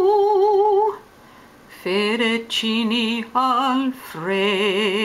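A solo voice singing opera-style in mock Italian with a wide vibrato and no accompaniment. A held high note breaks off about a second in, and after a short pause come shorter, lower sung phrases.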